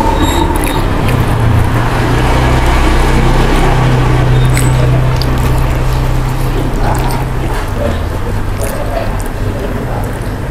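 Fingers picking at a crisp fried mujair fish, with small scattered clicks and crackles. Over them a low rumble swells a couple of seconds in, holds, and fades after about seven seconds; it is the loudest sound.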